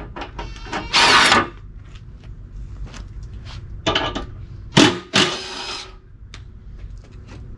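Cordless impact wrench running in several short bursts as it backs bolts out of a Toyota Tundra's stock front bumper. The loudest bursts come about a second in and again around five seconds in.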